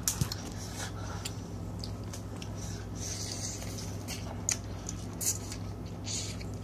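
Boiled crab being picked apart and eaten by hand: scattered small clicks and cracks of shell, and a short sucking sound about three seconds in as meat is drawn from a shell, over a steady low hum.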